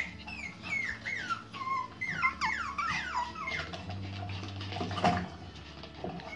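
Pomeranian puppies whining: a quick run of high-pitched cries, each falling in pitch, over the first three and a half seconds, then a single knock about five seconds in.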